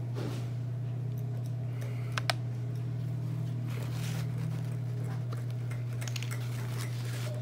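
A steady low hum under light handling clicks and taps. About two seconds in comes a sharp double clink, metal forceps being set down on the work table.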